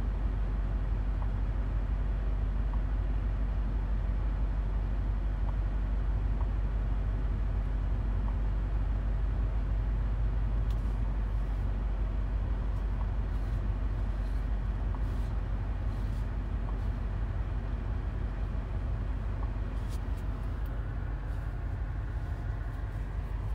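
Steady low rumble of a 2022 BMW X6 M being driven, engine and road noise at an even pace, easing slightly near the end.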